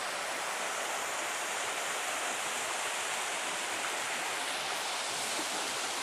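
A small waterfall cascading down over boulders: a steady rush of falling water.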